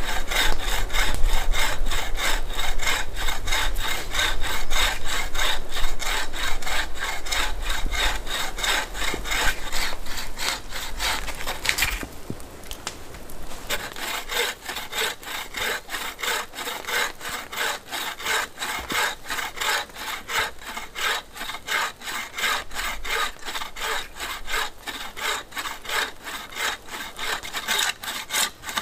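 Wooden frame bow saw cutting through a branch with fast, even back-and-forth rasping strokes, pausing briefly about twelve seconds in. A low rumble sits under the first twelve seconds.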